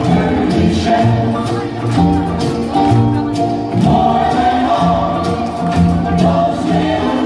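A Hawaiian hula song with singing, played over the hall's speakers as the dancers' accompaniment, with held sung notes over a regular beat.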